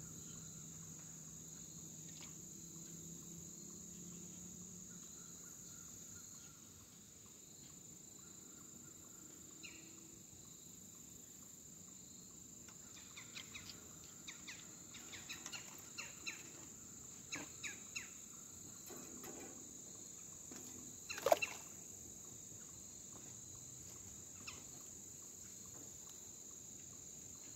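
Faint, steady high-pitched chirring of crickets, with scattered light clicks and rustles in the second half and one sharper knock about three-quarters of the way through.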